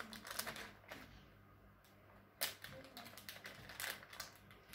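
Faint, scattered clicks and light taps of baking things being handled on a table, a glass bowl and kitchen scale among them, with one sharper tap about two and a half seconds in.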